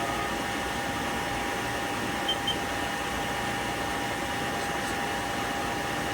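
Haas SL20T CNC lathe spindle running at a steady speed: an even mechanical hum and whine that holds constant. Two short high beeps come a little over two seconds in.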